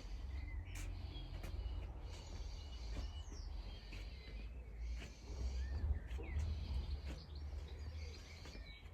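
Small birds chirping and calling in short, gliding notes over a steady low rumble.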